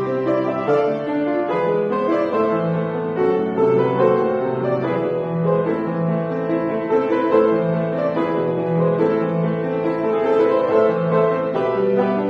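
Solo piano playing, with held bass notes under a moving melody line.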